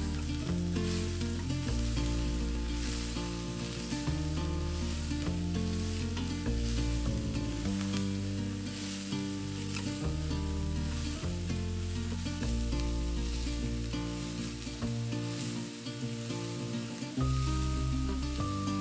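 Food sizzling in a hot frying pan and being stirred, with scattered scraping ticks. Background music with slow-changing bass notes plays throughout.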